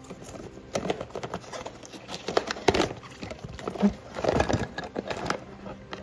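A cardboard box being opened and a pair of flat bicycle pedals lifted out: cardboard flaps rustling and scraping, with a run of irregular knocks and clicks, loudest in the middle.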